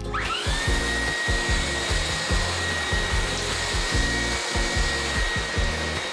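Cordless stick vacuum cleaner starting up: its motor whine rises quickly in pitch, then holds a steady high whine with a rush of airflow as the floor head is pushed over a hard plank floor.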